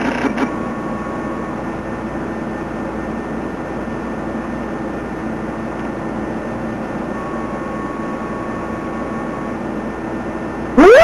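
Steady hiss with a low hum underneath. Near the end a loud, brief sweep rises sharply in pitch and cuts off.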